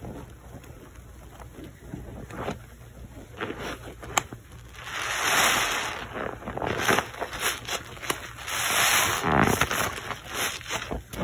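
Soap-soaked sponges squeezed and scrunched in thick foam by rubber-gloved hands: wet squelching and fizzing of suds, with two longer, louder squeezes about halfway through and toward the end.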